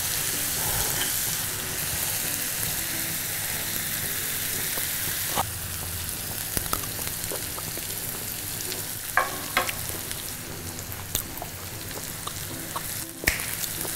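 Mutton chukka sizzling as it fries dry in a kadai on the stove, a steady hiss that eases slightly about five seconds in. A few light clicks come in the second half.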